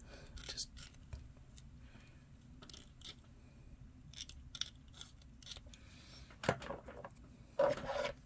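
Hobby knife blade scraping and nicking at a small plastic miniature part, a string of light scratchy clicks. A brief louder sound comes about six and a half seconds in and again near the end.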